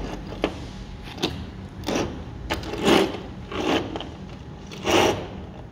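Metal bolts, nuts and washers clinking and knocking as they are picked up and set down on a table by hand: about six irregular clinks, the loudest about halfway and near the end.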